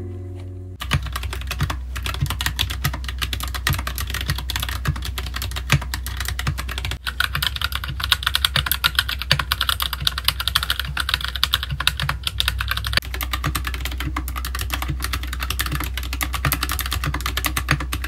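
Fast touch-typing on a KEMOVE Snowfox mechanical keyboard with brown switches: a dense, continuous stream of keystroke clacks that starts about a second in.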